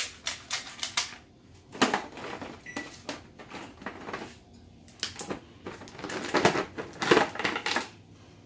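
Kitchen shears snipping and cracking through cooked crab shell: an irregular run of sharp clicks and crunches, with a louder cluster near the end.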